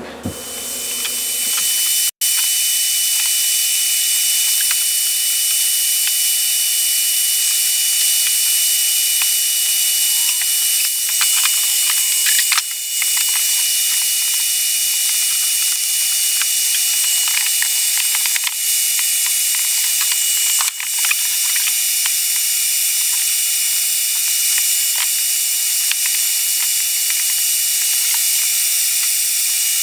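Bee vacuum running: a steady motor whine and hiss of suction through the hose, building up over the first couple of seconds as it starts, with scattered clicks and rattles of material being sucked up.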